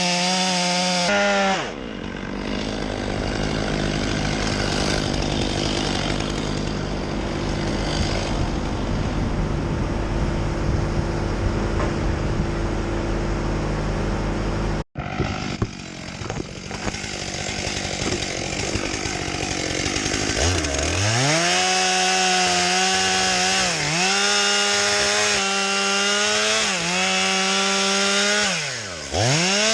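Two-stroke chainsaw run at high revs and cutting wood, its engine note dropping several times as the chain takes load. Before it, a steady low hum of heavy machinery, and the sound cuts off abruptly about halfway through.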